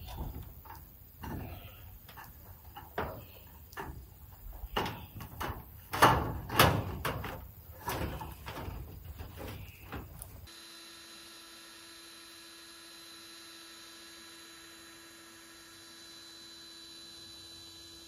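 Sheet metal scraping, sliding and knocking against a steel roof as ridge cap is handled into place, in irregular strokes that are loudest about six seconds in. It stops abruptly about ten seconds in, leaving a faint steady hum.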